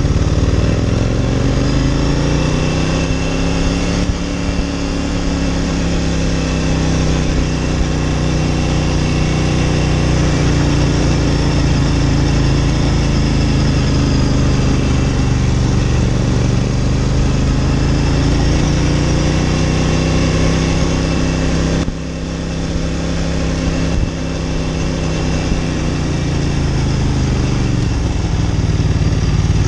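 Ducati Monster 900's air-cooled 90-degree V-twin running under way on a hill climb, its pitch rising and falling slowly as the revs change. About three-quarters of the way through the level drops suddenly, then the engine note picks up again.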